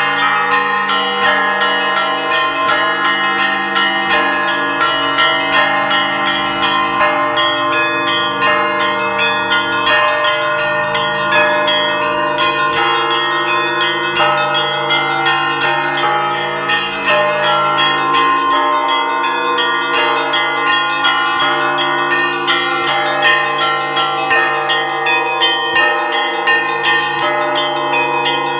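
Orthodox church bell ringing (zvon) on a set of monastery bells. Small high bells strike rapidly and continuously over deep bells that are re-struck every couple of seconds, their long hum carrying underneath.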